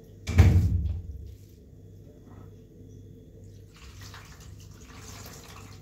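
Water splashing and running, as in washing at a tap or basin, with one loud splash about a quarter second in that dies away within a second. A softer wash of water noise follows near the end.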